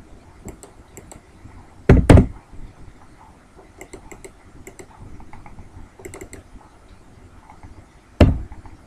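Computer keyboard keystrokes and mouse clicks, scattered small clicks, with two heavy thumps, one about two seconds in and one near the end, the loudest sounds here.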